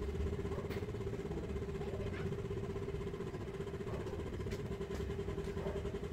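A steady machine hum holding one constant tone over a low rumble, with a few faint clicks.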